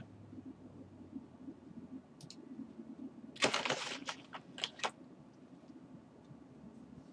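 Clicking at a computer desk: a quick rattling run of clicks about three and a half seconds in, then a few single clicks, over a low steady hum.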